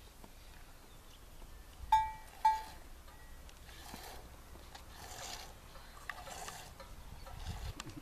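Hand-milking a cow into a small plastic cup: soft hissing squirts of milk every second or so. About two seconds in come two short ringing pings, half a second apart, the loudest sounds.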